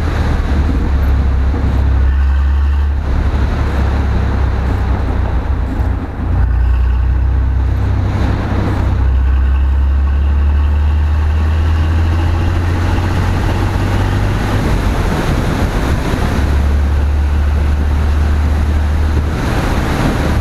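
GM Vortec engine rumbling steadily as the vehicle drives along the highway, with a heavy low rumble and road noise and a short dip in loudness about six seconds in.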